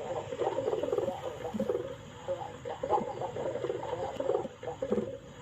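Domestic pigeons cooing repeatedly, a continuous run of short, low, throaty coos.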